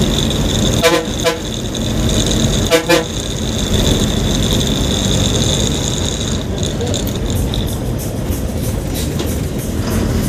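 Bus horn sounding two pairs of short, pitched blasts, about a second in and again about three seconds in, over the steady running of the Ashok Leyland bus's diesel engine and road noise. A steady high-pitched tone runs underneath and stops about six and a half seconds in.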